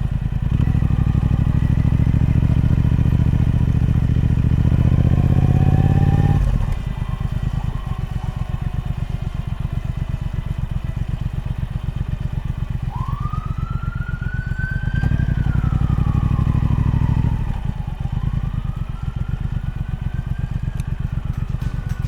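Triumph Speed Twin 1200's parallel-twin engine through its stock exhaust while riding: it pulls hard under throttle, then drops off sharply about six seconds in to a steady, even beat. It picks up again briefly about fifteen seconds in and eases off once more.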